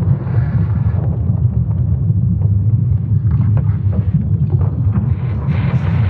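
Sonification of Earth's magnetic field made from ESA Swarm satellite measurements: a steady deep rumble with faint scattered crackles and a brief rushing swell near the end.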